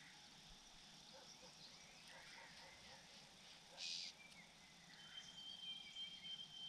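Faint outdoor ambience with scattered soft bird chirps, a brief hiss about four seconds in, and a thin steady high tone from about five seconds in.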